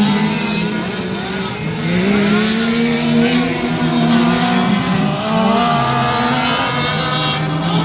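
Race car engine running hot laps on an oval: the pitch climbs and holds under acceleration, then drops sharply about five seconds in as the throttle comes off, and settles again.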